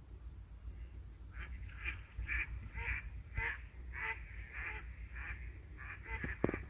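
A bird calling over and over in short, rough calls, about two a second, over a low steady rumble, with a single knock near the end.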